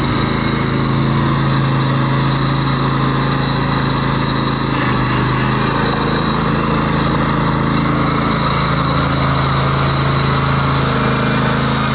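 Ride-on lawn tractor engine running steadily at an even pitch while the tractor is driven slowly.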